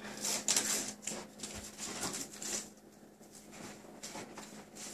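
Light rustling and scattered soft clicks of cardboard and packing being handled around a newly unwrapped TV, over a faint steady hum.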